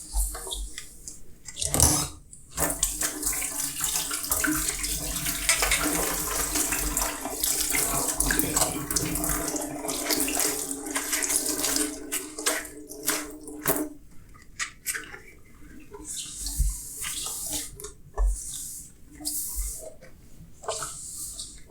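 Kitchen tap running into a sink during hand dishwashing: the water comes on about two and a half seconds in and shuts off around fourteen seconds. Before and after it, dishes knock and clink with small splashes.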